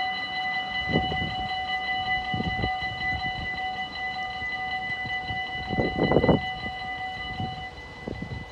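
Dutch level-crossing warning bell ringing rapidly as the barrier arms lower, most of it stopping near the end once the barriers are down. A few short low rushes break in, the loudest about six seconds in.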